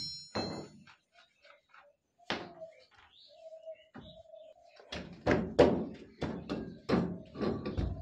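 Honda Aviator scooter's rear wheel being rocked and pulled off its axle: a series of dull knocks, a few at first and then a quick cluster of about eight in the last three seconds. It opens on the fading ring of a metal clink.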